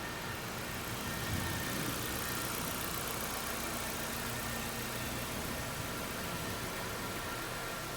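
2017 Nissan Versa Note's four-cylinder engine idling steadily.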